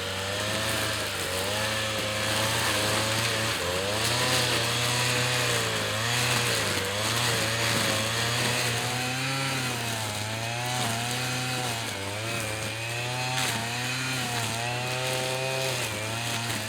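Small engine-driven power tool running hard, its pitch dipping and recovering about once a second as it works under load.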